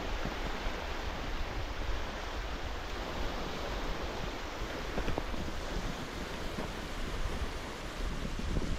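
Wind blowing across the microphone: a steady rumbling hiss with no breaks.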